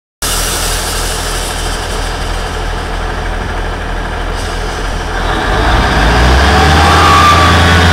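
Class 158 diesel multiple unit's underfloor diesel engines idling steadily, then opening up and getting louder about five and a half seconds in as the train starts to pull away, with a faint whine coming in near the end.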